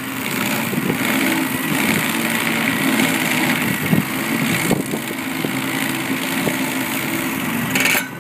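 Stump grinder's engine running steadily under load as its cutting wheel works into a tree stump, with a few sharp knocks about halfway through.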